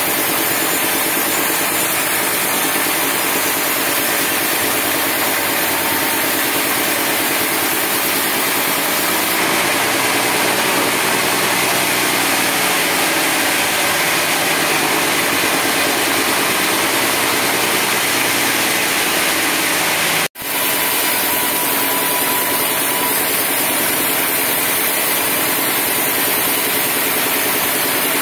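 Sawmill saw running steadily and loudly as a teak block is fed through it, a dense, even machine noise with a faint hum underneath. The sound drops out suddenly for a split second about twenty seconds in, then resumes unchanged.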